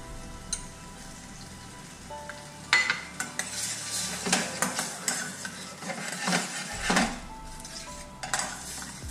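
A spatula stirring and scraping through fresh cream in a hot stainless steel pan of mushrooms, with the sauce sizzling. The strokes start a little under three seconds in and repeat about twice a second.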